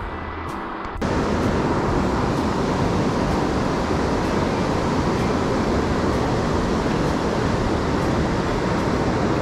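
Steady rush of a fast mountain river running over rocks and rapids, starting abruptly about a second in.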